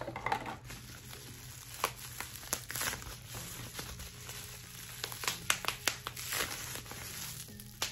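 Plastic bubble-wrap packaging crinkling and crackling as it is squeezed and twisted in the hands, with scattered sharp clicks that grow denser near the end.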